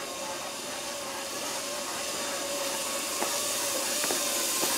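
Zip-line trolley pulleys running along the steel cable: a steady hiss with a faint whine that grows louder as the rider comes closer, with a few light clicks near the end.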